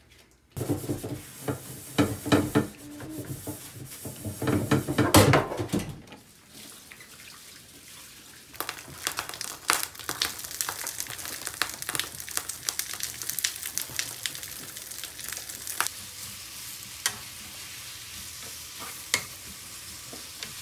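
Diced food stir-frying in a pan: a steady sizzle with frequent clicks and scrapes of a wooden spatula against the pan. For about the first six seconds a louder sound with knocks and a low pitched tone lies over it.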